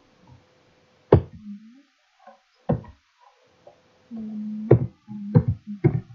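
Computer keyboard keystrokes: about five sharp, separate key clicks as a number is typed in. A low held tone sounds between some of the clicks.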